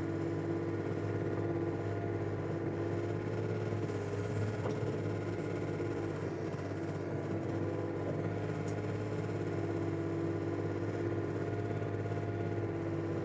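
Komatsu PC35 mini excavator's diesel engine running steadily while the machine digs a trench, with a steady hum that wavers slightly in pitch under the load of the hydraulics.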